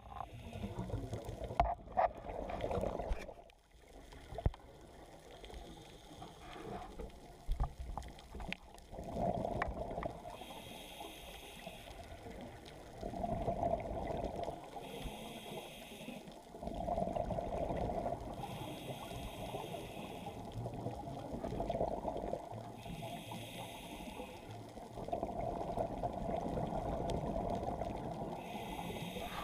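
Scuba diver breathing through a regulator underwater: repeated breaths every few seconds, each exhale a rush of bubbling, with a faint hiss between them and a few sharp clicks early on.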